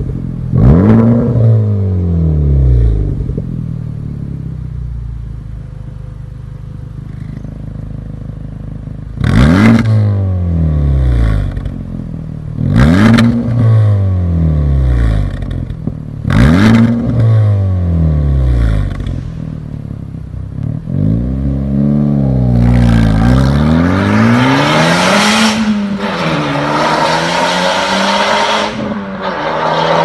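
Honda Civic Type R FK8's turbocharged 2.0-litre four-cylinder through a Fi Exhaust valved system, revved from idle: a rev near the start, a settled stretch, then three sharp rev blips a few seconds apart. Near the end comes a longer run of revving with a loud rushing noise over it.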